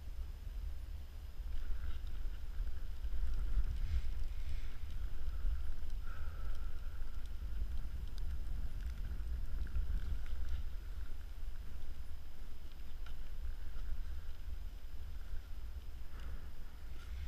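Wind buffeting the microphone outdoors on open ice, a steady low rumble, with a few faint clicks.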